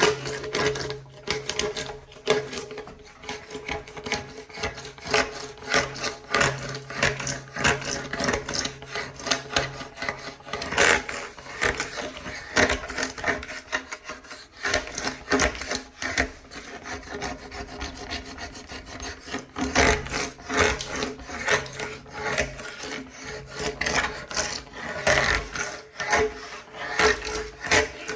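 Hand-held metal scraper blade scraping dried water-based wood glue off the underside of a glued-up wooden tabletop, in quick, uneven, repeated strokes.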